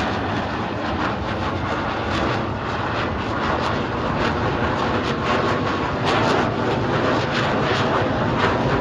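Steady roar of jet aircraft flying over at an airshow, with no clear rise or fall.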